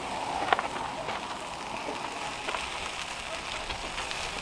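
Wood fire crackling in a clay oven: a steady hiss with scattered small snaps, the sharpest about half a second in.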